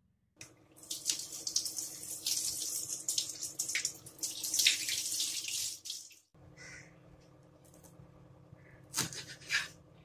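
Water running from a tap into a sink and splashing, for about six seconds, then cutting off abruptly. A couple of short, light knocks follow near the end.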